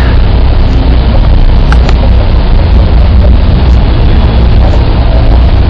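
Loud, steady wind buffeting on the camera microphone: a continuous low rumble with a hiss over it.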